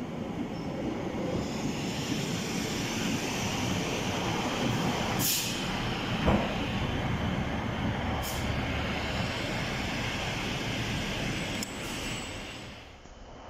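Class 156 Sprinter diesel multiple unit running slowly into the platform and braking: steady engine and wheel noise with a high brake hiss, and four sharp clicks. The noise falls away near the end as the train draws to a stop.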